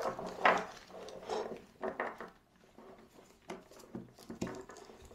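Light, irregular handling knocks and rustles, about five in all, as a flash bounce diffuser is fitted with its velcro strap onto a camera flash.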